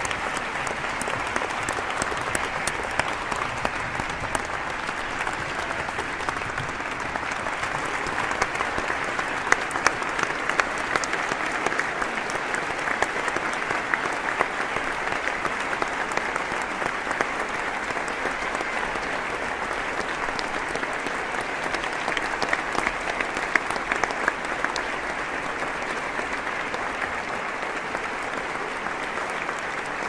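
Crowd applauding steadily: a dense, even clatter of many hands clapping, with a few louder single claps standing out now and then.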